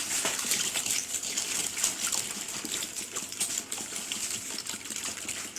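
Water being poured into a container, a steady gush with light clicks and knocks throughout.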